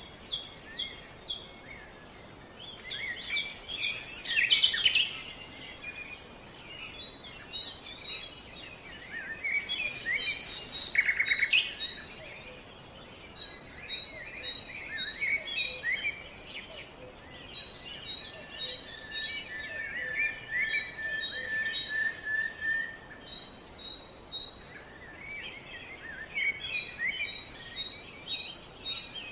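Several wild birds chirping and singing, with quick series of short high notes repeated throughout and a longer held whistled note around two-thirds of the way through.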